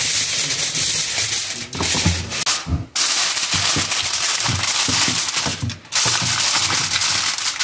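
Aluminium foil crinkling and crackling as a sheet is spread over a glass baking dish and pressed down around its edges, in three stretches with brief pauses about three and six seconds in.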